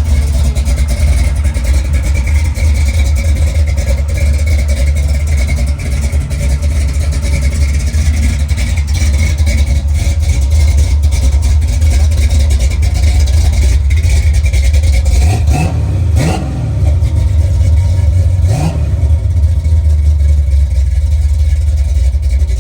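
468 cubic-inch big-block Chevy V8 with a roller cam idling lumpy through a 3-inch exhaust with Dynomax Ultra-Flow mufflers, while it warms up. It is revved briefly twice, about 16 and 18 seconds in.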